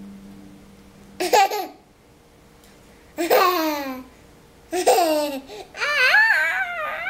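A baby's high-pitched laughs and squeals: four short bursts, most sliding down in pitch, the last one longer and wavering up and down.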